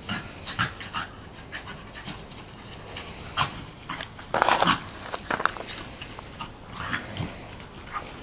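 Lakeland terrier and Plummer terrier pup play-fighting, panting, with a run of short scuffling sounds and a louder burst about four and a half seconds in.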